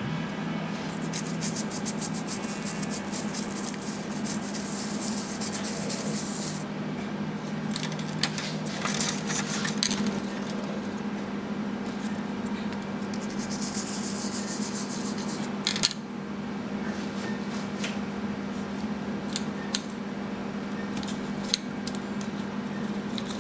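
A plastic spoon scraping and rubbing against the inside of a thin plastic cup, with light clicks of the spoon and a small copper-clad board knocking on the cup. The scratchy rubbing comes in two stretches, a long one early and a shorter one later, over a steady low hum.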